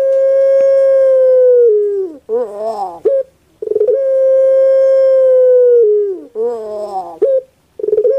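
Puter pelung (Barbary dove, Streptopelia risoria) cooing in repeated phrases. Each phrase is a long, steady, clear note of about two seconds that drops in pitch at its end, followed by a short warbling, rolling coo. Three of the long notes fall in this stretch.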